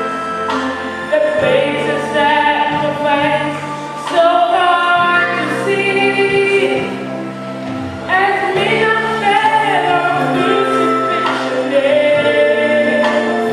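Gospel music: voices singing long, wavering notes over instrumental accompaniment with steady held bass notes.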